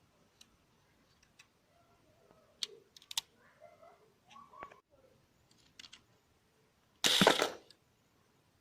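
Plastic clicks and small rattles of a Lego rubber band pistol's mechanism being handled, then one loud, sharp snap about seven seconds in that lasts about half a second, likely the rubber band firing.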